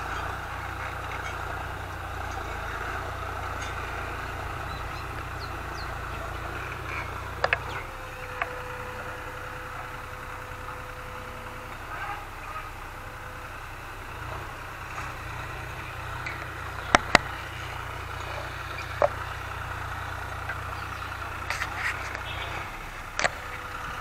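Distant farm tractor engine running steadily under load while ploughing, a low continuous rumble. A few sharp clicks come through it, the loudest a quick pair about two-thirds of the way through.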